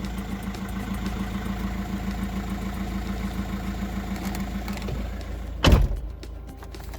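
VW 1.9 TDI diesel engine idling steadily, running again after a crankshaft-sensor wiring fault had kept it from starting. About five seconds in the engine stops, followed by a loud clunk.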